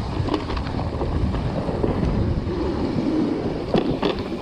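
Wind rushing over the camera's microphone at riding speed on an electric mountain bike descent, with the tyres rolling over dirt and the bike rattling over bumps; a couple of sharp knocks near the end.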